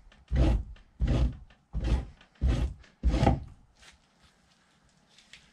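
Fleshing knife being drawn down a raccoon hide over a wooden fleshing beam, scraping off fat. Five rhythmic strokes, each a scrape with a dull thud from the beam, stop about two-thirds of the way through.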